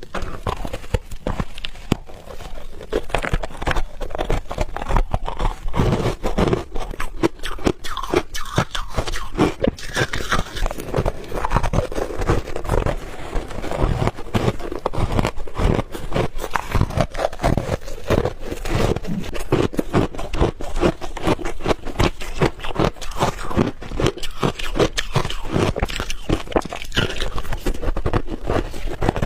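Refrozen ice balls being bitten and chewed close to the microphone: a dense, continuous run of crisp crunching and cracking.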